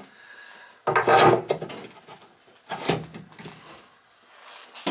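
A chrome two-handle laundry faucet being handled and pushed down onto a laundry tub's deck, knocking and scraping against the tub as its shanks are worked into the mounting holes. A few separate knocks and scrapes, the loudest about a second in.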